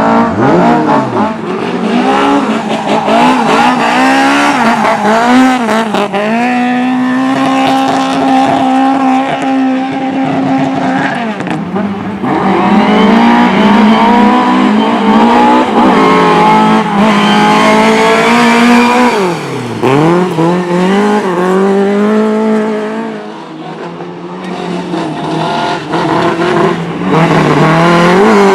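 Several speedway motorcycles racing on a cinder track, their single-cylinder engines howling together, pitch rising on the straights and dropping into the turns. The bikes fade briefly near the end before coming back loud.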